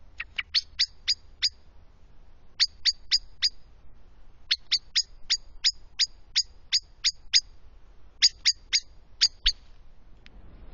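Common blackbird giving its sharp, repeated 'chink' alarm call: rapid high notes in several bursts of two to ten, with short pauses between.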